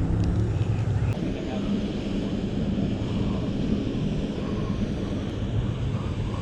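A steady low engine drone with a constant hum.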